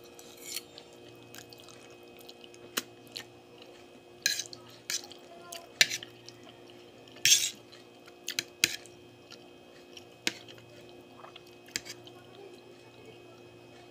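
Close-up eating sounds of spaghetti carbonara: wet slurps and chews of noodles and fork clinks against a ceramic plate, coming in short irregular bursts. The loudest bursts fall a little past the middle. A faint steady hum runs underneath.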